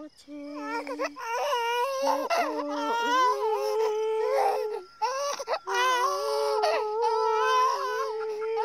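An infant crying: long, drawn-out wails that bend in pitch, broken by a few short gasps for breath.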